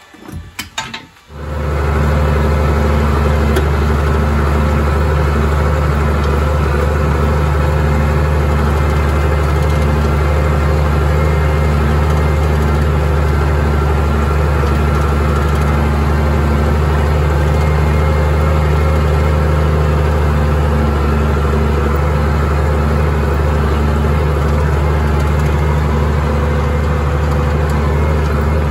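A few brief knocks, then from about a second and a half in a farm tractor's diesel engine runs steadily at constant speed, pulling a seven-row planter across the field.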